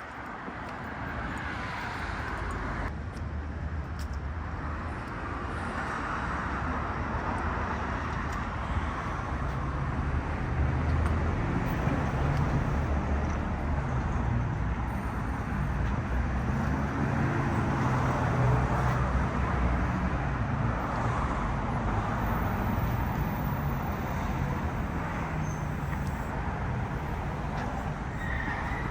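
City street traffic: a steady rush of cars going by, swelling louder through the middle.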